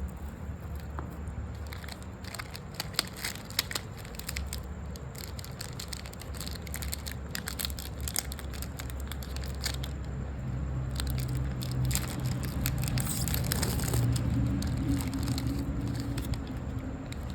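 Snack packaging being handled: plastic wrapper crinkling and crackling in irregular bursts, with a couple of sharp clicks about three seconds in, over a low steady hum.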